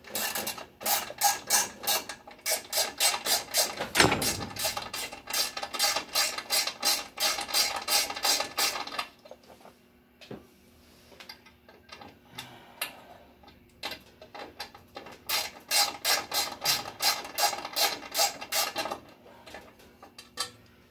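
Ratchet wrench clicking in fast, even runs of about four clicks a second as bolts on a pinsetter's bottom guard are worked loose. It breaks off for several seconds midway, then clicks again. A heavier knock comes about four seconds in.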